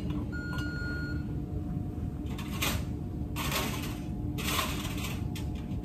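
Steady room hum with a few short rustling and handling noises as items are gathered, and a short faint electronic beep near the start.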